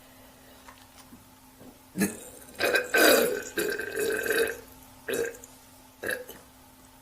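Woman belching: a short sharp sound about two seconds in, then one long drawn-out burp of nearly two seconds, followed by two short ones near the end.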